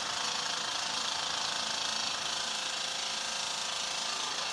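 Steady hiss of steam jetting from the spinning copper sphere of a model Hero's engine (aeolipile), with a fast mechanical rattle underneath.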